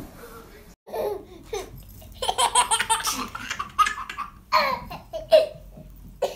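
A baby laughing in several separate peals.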